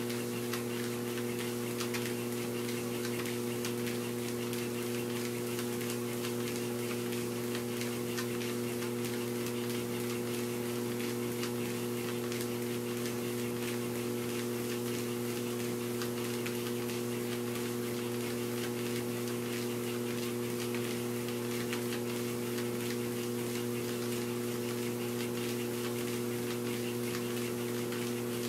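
Treadmill motor humming steadily under a light, frequent ticking of a small dog's claws on the moving belt.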